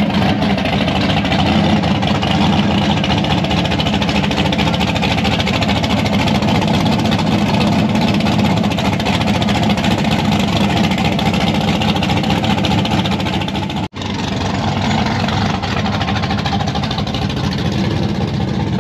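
Loud drag car engine running steadily at a lumpy-free, even rumble near idle; it drops out for an instant about fourteen seconds in and comes straight back.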